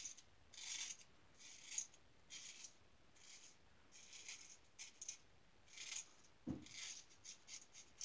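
Star Super Six lather catcher safety razor with a Gem single-edge blade scraping through lathered stubble: about a dozen short, raspy strokes in quick succession. A brief low bump about six and a half seconds in.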